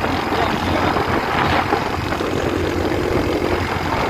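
Honda CG Start motorcycle's single-cylinder engine running steadily through an aftermarket exhaust while being ridden.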